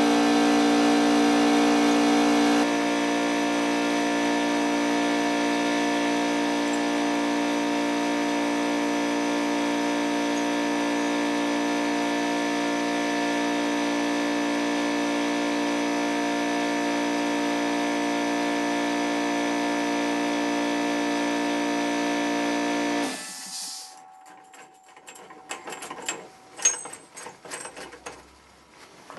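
A motor-driven machine running with a steady, even hum, which cuts off suddenly near the end. Short clinks and knocks of metal parts being handled follow.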